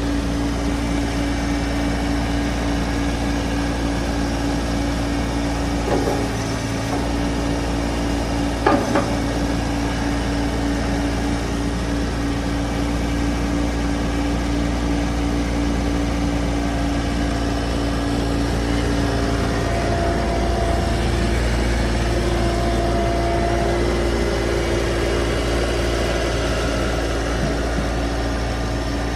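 Toro TX-1000 stand-on mini skid steer's engine running steadily, with two short knocks about six and nine seconds in and a faint higher tone coming and going in the second half.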